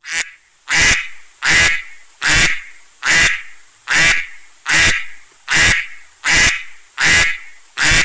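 Duck quacking: about eleven loud, evenly spaced quacks, one every three quarters of a second, over a steady high hiss.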